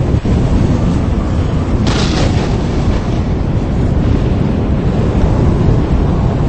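Strong tornado-driven wind buffeting the microphone: a constant deep rumbling roar, with a short loud hiss of a gust about two seconds in.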